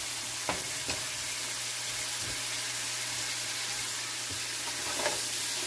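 Red ají chili and garlic paste sizzling steadily in a nonstick frying pan while a silicone spatula stirs it, with a few soft taps of the spatula against the pan.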